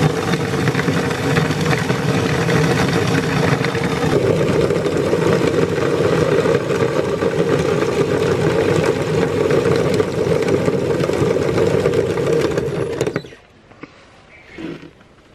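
Belt-driven electric meat grinder running under load: a steady motor hum under a dense crackle of hard pieces being crushed through the cutting plate. It stops abruptly near the end.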